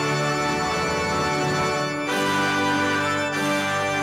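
Electronic keyboard playing sustained organ-style chords, moving to a new chord about two seconds in.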